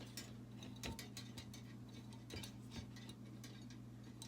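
Scattered light clicks and ticks of galvanized steel wire being handled and worked by hand, at an irregular pace, over a steady low hum.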